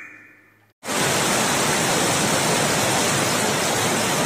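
Heavy downpour: a steady, even hiss of pouring rain that starts suddenly about a second in.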